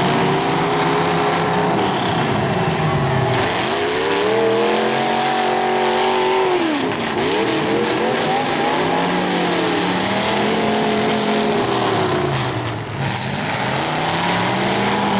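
Demolition derby car engines revving hard, their pitch rising and falling over and over every couple of seconds, over a constant loud noise wash.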